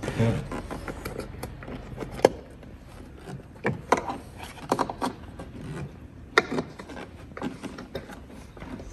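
A small hose clamp being fitted by hand onto the corrugated ventilation hose of an SOG toilet extraction kit: scattered clicks and knocks of plastic parts, a few of them sharp, amid handling noise.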